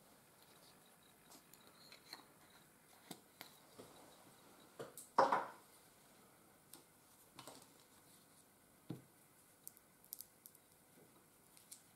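Scattered faint clicks and light taps of small objects being handled on a table, with one louder sharp knock about five seconds in and a duller one near nine seconds.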